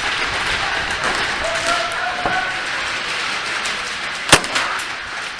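A single sharp crack about four seconds in, typical of an airsoft shot, with a few lighter ticks after it. Under it runs a steady hiss of movement and field noise, with faint distant shouting early on.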